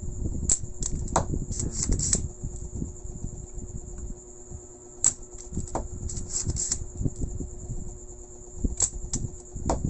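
Spring-loaded desoldering pump (solder sucker) clicking against a TV circuit board's solder joints while a faulty resistor is being removed. The sharp clicks come in clusters: several in the first two seconds, more around five to seven seconds, and a few near the end. A steady high-pitched whine runs underneath.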